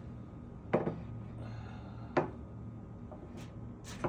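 A few sharp clinks of a utensil against a dish, spaced a second or so apart, over a low steady hum.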